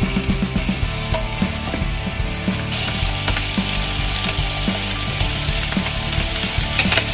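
Chicken drumettes sizzling in hot oil in a frying pan, with small pops, as raw pieces are laid in one after another. The sizzle gets louder about three seconds in as more pieces go in.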